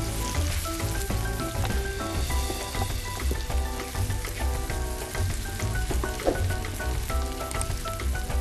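Sliced mushrooms and onion sizzling in a frying pan while being stirred with a wooden spatula, a steady hiss with small crackles. Background music with a steady beat plays over it.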